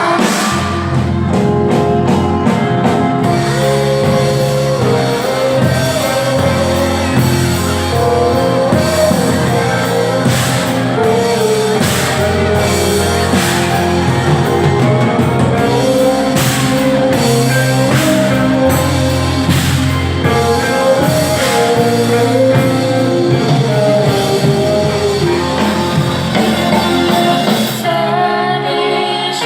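A song with singing over a band of bass, guitar and drums, with a steady beat; the drums drop out near the end.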